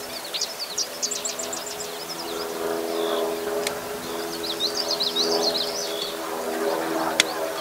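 A songbird singing two quick phrases of rapid high chirping notes, one about half a second in and another around five seconds in, over a steady low hum. Two sharp clicks stand out, one in the middle and one near the end.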